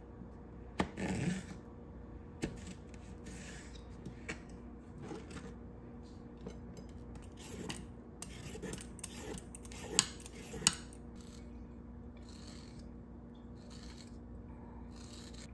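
A kitchen knife slicing a bell pepper on a plastic cutting board, tapping against the board, then a vegetable peeler scraping strips off a carrot. Scattered clicks and short scrapes, the sharpest two a little after halfway.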